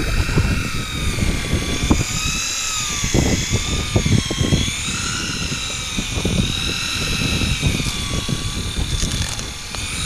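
Electric sea-fishing reel whining as it winds a hooked fish up from depth, its pitch wavering up and down with the changing load. Wind buffets the microphone underneath.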